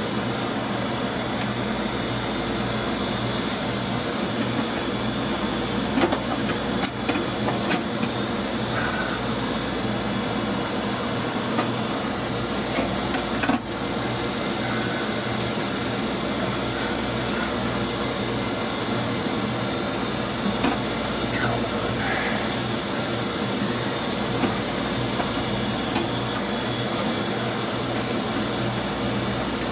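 Steady hum of running laundromat machinery, with scattered clicks and light metal knocks as a sheet-metal electrical cover is handled and screwed back onto a Speed Queen stack dryer.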